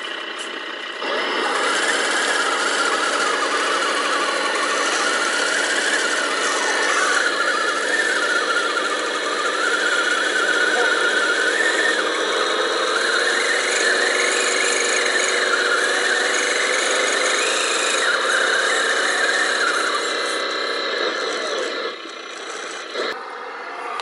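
Electric motor and gear drive of an RC scale Land Rover Defender 90 truck whining as it drives through mud and water, the pitch wavering up and down with the throttle. The whine drops out about two seconds before the end, with one brief burst after.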